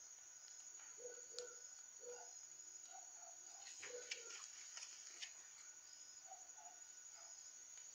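Near silence: a faint steady high-pitched tone with a few soft, short bird calls in the background.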